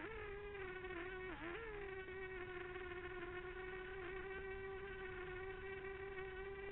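Quadcopter drone's motors and propellers buzzing steadily in flight. The pitch dips and wobbles briefly at the start and again about a second and a half in, then holds steady.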